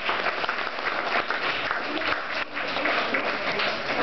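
An audience of schoolchildren applauding, many hands clapping at once.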